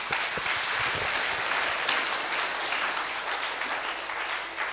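Congregation applauding: dense, steady clapping that eases off slightly near the end.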